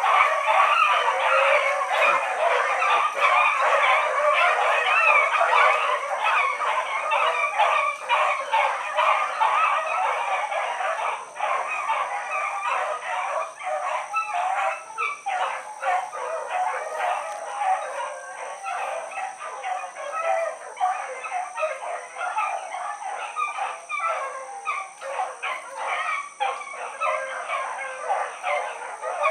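A pack of rabbit hounds giving tongue together on a running rabbit: many overlapping bays and barks in a continuous chorus, fading gradually.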